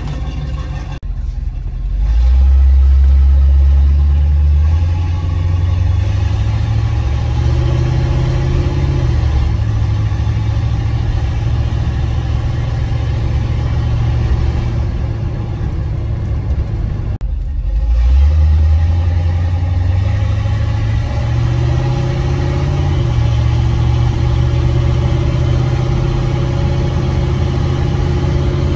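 1976 Chevrolet K10 pickup's 350 small-block V8 running as the truck is driven, heard from inside the cab. The engine note climbs and gets louder about two seconds in, steps up in pitch a little later, and after a brief dip climbs again a little past halfway.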